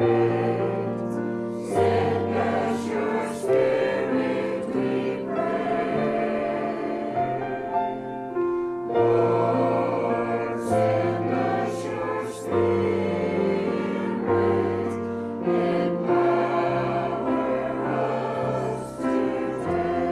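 Mixed church choir of men and women singing a hymn together, holding sustained chords that change every second or two.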